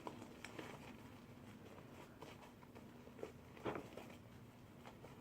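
Near silence: room tone with a few faint clicks, one a little louder about three and a half seconds in.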